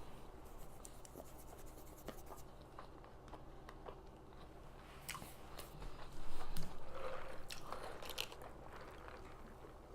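Close-miked chewing of a fast-food burger, with small wet clicks throughout and a louder stretch about six seconds in.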